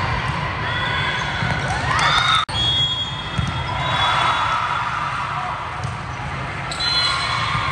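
Indoor volleyball rally sounds: the ball being struck, short high sneaker squeaks on the court floor, and the chatter of players and spectators echoing in a large gym, with an abrupt cut to another rally about two and a half seconds in.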